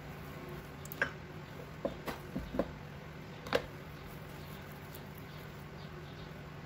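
Hands rolling sticky raw ground-chicken meatball mixture into balls: about five short wet squishes and clicks in the first few seconds over a low steady hum.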